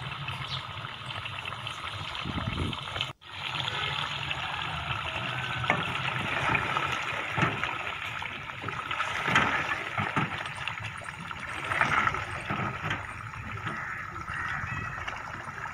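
Goat head meat bubbling and sizzling in ghee in an aluminium pot, stirred with a wooden spoon that gives occasional knocks and scrapes. The sound cuts out for an instant about three seconds in.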